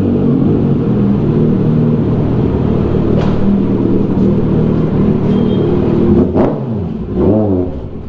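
Kawasaki Z900's inline-four engine running under way through a loud aftermarket exhaust. Its pitch holds steady, then dips and climbs again as the throttle is rolled on about seven seconds in. A couple of sharp clicks sound about three and six seconds in.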